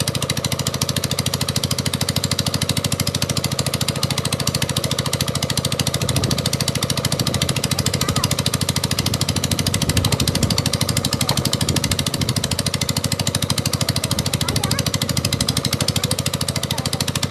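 A construction machine running steadily with a fast, even pulsing.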